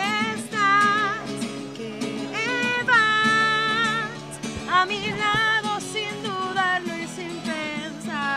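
Background song: a woman singing long, wavering notes with vibrato over acoustic guitar accompaniment.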